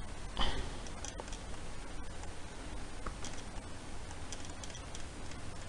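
Faint, scattered clicks of a computer mouse and keyboard over a steady low hum and hiss from the microphone, with one brief louder rustle about half a second in.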